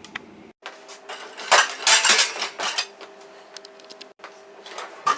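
Amana dishwasher's bottom rack being slid back in, rattling and clinking in a burst of clatter for a couple of seconds, then a few lighter clicks and one sharper one near the end.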